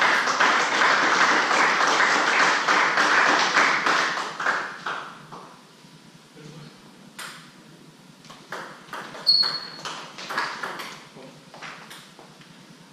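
Spectators applauding, dying away about five seconds in. After that come a few scattered knocks and pings of a table tennis ball bouncing.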